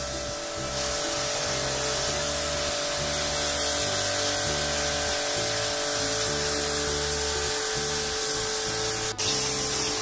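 Electric pressure washer spraying water onto the cross-flow blower fan of a split air conditioner's indoor unit: a steady hiss of spray over the washer's motor hum. Background music with a stepping bass line plays along. About nine seconds in, the sound breaks off for an instant and comes back louder and hissier.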